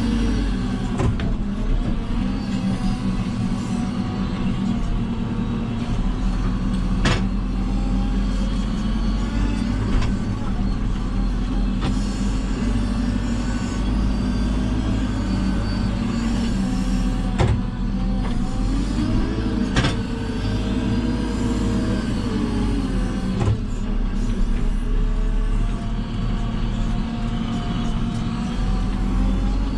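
JCB 3CX backhoe loader's diesel engine running steadily while working, its note rising and falling briefly about two-thirds of the way through, with several sharp knocks every few seconds.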